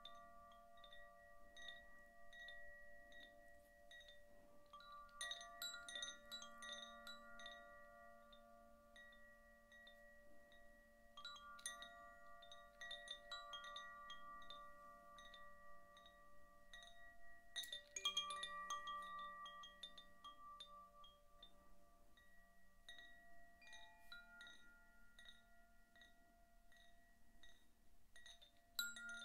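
Zaphir "Sufi" chime swung by hand, its clapper striking the tuned rods inside the tube. Clusters of soft, overlapping tones ring on and fade, with fresh strikes every few seconds; the loudest comes about two-thirds of the way through.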